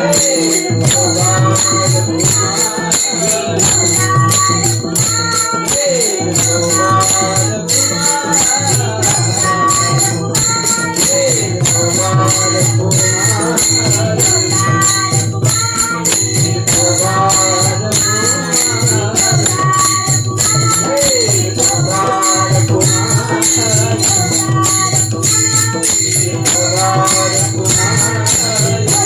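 Marathi devotional kirtan music: a sung melody carried over a steady jingling percussion beat and a pulsing low drum.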